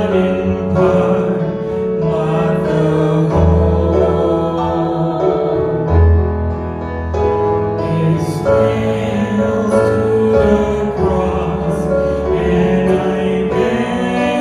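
Slow worship music with piano and sustained bass notes, with singing.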